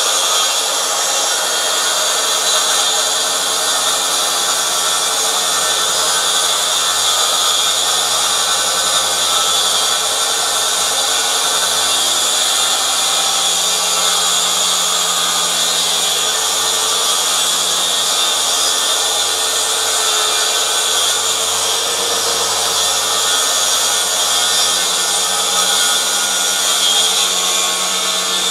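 Makita SP6000 plunge saw running steadily while it rips along a 3 m guide rail through a birch board, with the vacuum dust extractor, which switches on with the saw, running under it.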